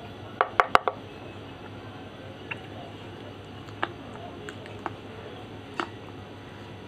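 Pieces of slate being bitten and crunched between the teeth: a quick run of four or five sharp snaps about half a second in, then single crisp cracks every second or so.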